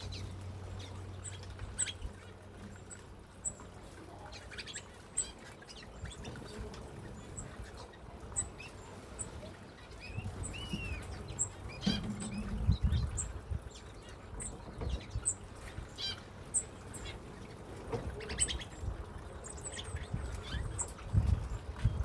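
Aviary birds chirping: many short, high-pitched chirps scattered throughout, with a couple of lower, curving whistled calls about halfway through.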